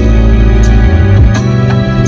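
Music: a loud track with a heavy bass line and a regular beat.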